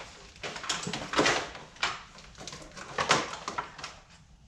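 Rustling, scraping and light knocking of an electrical power wire being pulled and routed through a car's engine bay: about half a dozen irregular handling sounds, the loudest about a second in and about three seconds in.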